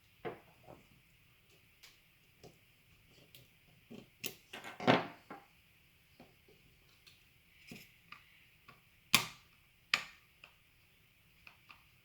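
Small plastic and metal gel blaster gearbox parts being handled and set down on a workbench: scattered clicks and knocks, a busier patch of handling noise about halfway through, and two loud sharp knocks a little under a second apart near the end.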